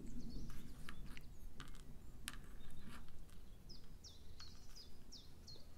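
A few light clicks of small beads knocking together as a strung bead ball is handled. About three and a half seconds in, a bird sings a quick run of about seven short falling chirps in the background.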